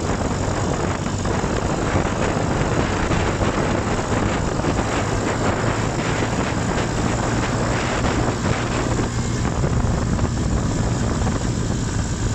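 Off-road buggy engine running steadily as the buggy drives across grass, with wind noise on the microphone.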